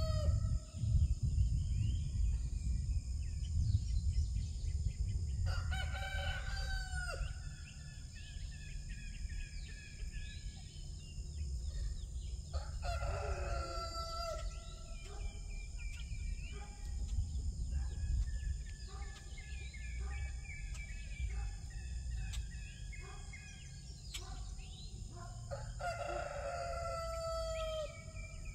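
Rooster crowing three times, with short bird chirps and clucks between the crows over a steady low rumble.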